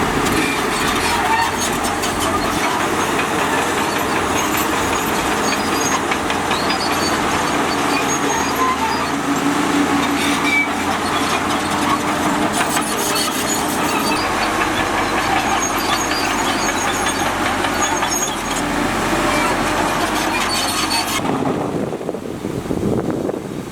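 A bulldozer working, its diesel engine running steadily under a dense mechanical clatter. About 21 seconds in the sound turns duller as the high, bright part drops away.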